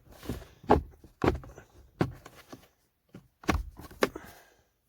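Irregular knocks, clicks and scraping of hands working a thick wire through a hole in a car's dash panel, with about five sharper knocks.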